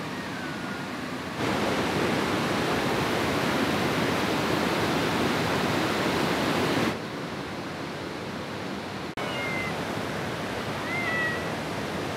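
Steady rushing water of a river waterfall, louder for about five and a half seconds starting just over a second in. A few faint, short high calls come through the water noise near the end.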